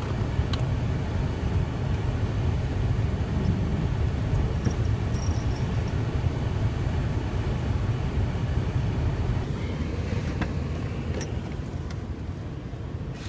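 Car engine running with a steady low rumble, heard from inside the cabin as the car is driven to try to get out of a snowed-in parking spot. The rumble eases off near the end.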